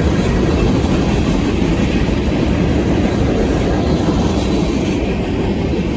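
Freight train's cars rolling past, a steady rumble of wheels on the rails.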